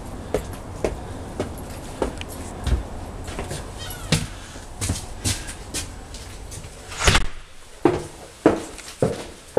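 Footsteps on a wooden porch and then up bare wooden stairs, a step about every half second, growing louder and heavier in the second half as the climb begins. A brief creak comes just before the middle.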